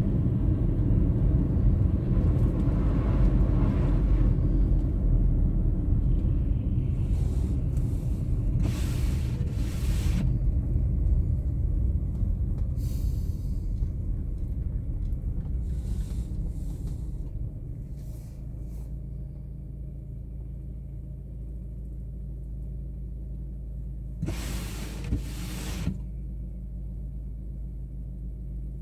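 Low rumble of a car's engine and tyres heard from inside while driving, dying down about two-thirds of the way through into a quieter steady hum as the car slows to idle. A few short hissing sweeps come and go, two of them close together near the end.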